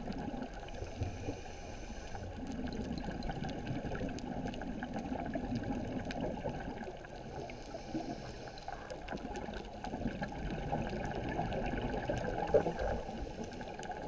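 Muffled underwater sound of a reef dive: a low, steady bubbling rumble with faint scattered clicks, and one sharper knock about twelve and a half seconds in.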